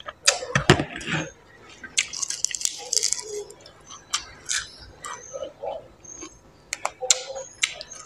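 Close-up eating sounds: a loud slurp of soup from a spoon in the first second, then wet chewing and crunching of fresh greens with many sharp mouth clicks.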